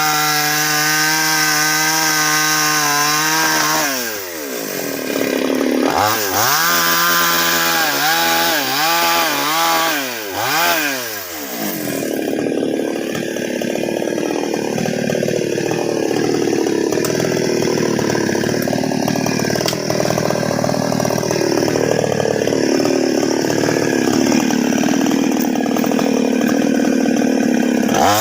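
Two-stroke chainsaw running at high revs, revved up and down several times, then cutting into a large sengon log for the second half, its note dropping and wavering under load until it frees up near the end.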